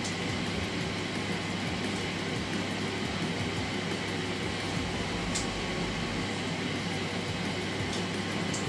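Electric air fryer running at 180 °C, its fan giving a steady whirring hum, with a couple of faint clicks about five seconds in and near the end.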